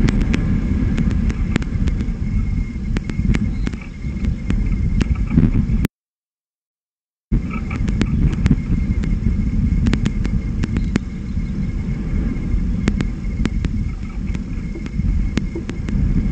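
Wind buffeting an outdoor nest camera's microphone: a loud, steady low rumble with scattered sharp clicks. It cuts off suddenly for about a second and a half around six seconds in, then comes back.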